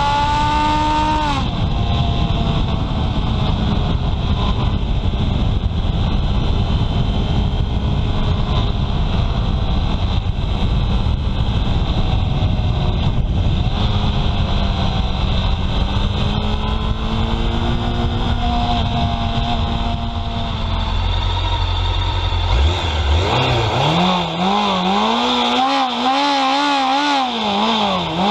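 Honda CB750 Sevenfifty's 747 cc inline-four engine under way: its pitch climbs and then drops about a second and a half in, and it runs at a steady speed under heavy wind buffeting on the microphone. Near the end the wind falls away and the engine is revved up and down repeatedly, about once a second.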